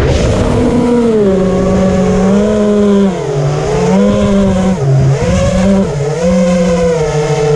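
FPV quadcopter's DYS Samguk brushless motors buzzing in flight, the pitch dipping and climbing back several times as the throttle changes. The owner calls the motors' sound a weird buzzing.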